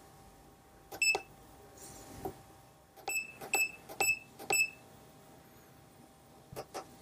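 Front-panel push buttons of a Labgear EM6990 encoder modulator being pressed, each press a small click, most followed by a short high beep from the unit confirming the key. There is one beep about a second in, then four in quick succession between about three and four and a half seconds in, with a faint steady hum underneath.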